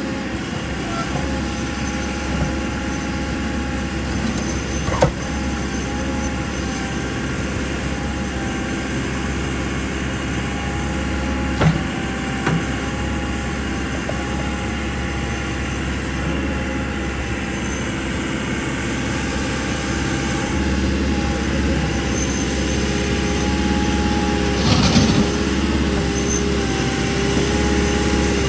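JCB 3CX 14 backhoe loader's diesel engine running steadily while the machine works, with a few sharp knocks, the loudest about twenty-five seconds in.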